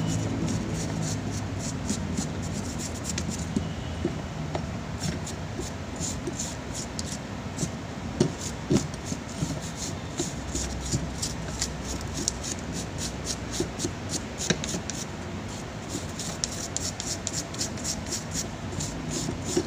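A small stiff brush scrubbing dirt off an electric fan motor's stator windings and core in quick, repeated strokes, with a few light knocks near the middle as the part is handled.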